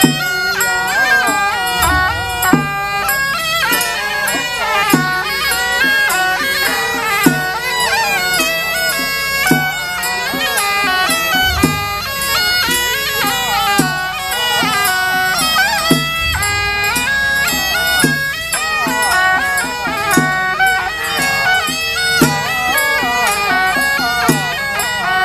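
Chinese temple ritual music: a suona (double-reed shawm) plays a loud, winding melody over regular drum strokes a little under once a second.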